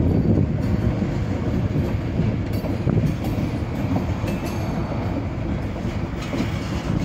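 Freight train of two-bay covered hopper cars rolling slowly past: a steady noise of steel wheels on the rails.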